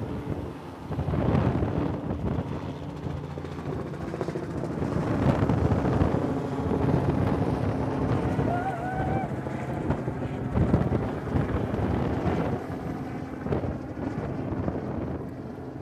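Strong wind gusting across the microphone, swelling and easing, with a steady low hum underneath.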